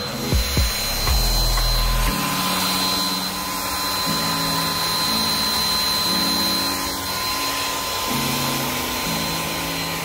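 Handheld hair dryer running, a steady rush of air with a thin motor whine, blown onto an iced-over car door handle to thaw it. A couple of handling bumps come just after the start.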